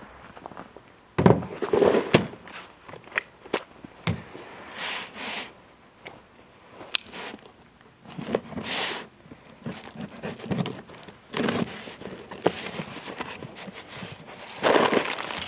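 Handling noises: a cardboard box of screws being picked up, knocked and opened on a plastic folding table, giving scattered clicks, knocks, scrapes and crinkling, with footsteps on gravel.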